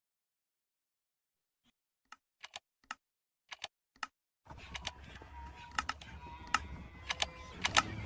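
Silence, then sharp, irregular clicks starting about two seconds in. About halfway through, a steady hiss comes in under further clicks.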